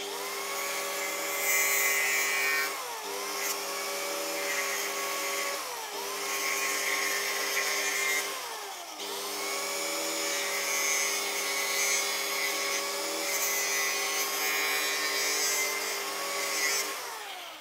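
Angle grinder running and cutting rigid plastic pipe. Its motor pitch sags three times in the first half as the disc bites under load, and near the end it is switched off and winds down.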